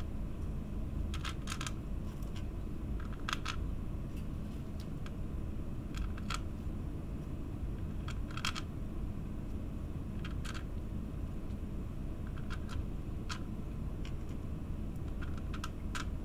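Small metal screws clicking against a clear plastic plate as they are set into its holes one by one: scattered, irregular light clicks, some in quick pairs, over a steady low hum.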